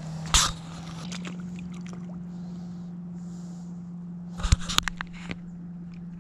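A fish being released into shallow, rocky water: a sharp splash about half a second in and a quick flurry of splashes around four and a half seconds in, over a steady low hum.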